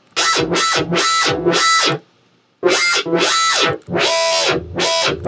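Distorted, dubstep-style synthesized bass from a Native Instruments Massive patch, shaped by EQ peaks into a vowel-like "aw" tone. It plays a quick run of short notes, each sweeping in tone, with a pause of about half a second near the middle.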